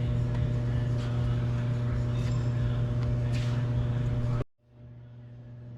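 A steady low machine hum with a few faint clicks. It cuts out abruptly about four and a half seconds in and comes back quieter, slowly growing louder.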